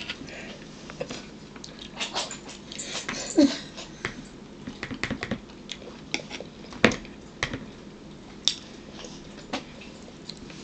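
Spoon and cutlery clicking and scraping against a plastic bowl and a plate during a meal: a scatter of short clicks and a few sharper knocks.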